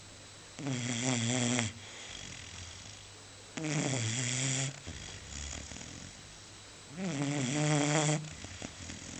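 A sleeping pet snoring: three drawn-out, pitched snores, each about a second long, coming roughly every three seconds.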